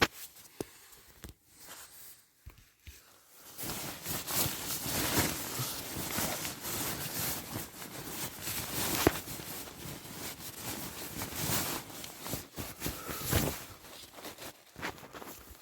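Rustling, crinkling and clicking of camping gear being handled and packed, sparse for the first few seconds and then dense and continuous, with a sharp knock about nine seconds in.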